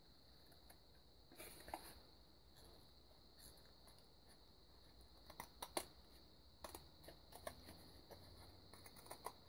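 Scissors snipping through thin box cardboard: a few quiet cuts in short clusters, about a second and a half in, around the middle, and again near the end.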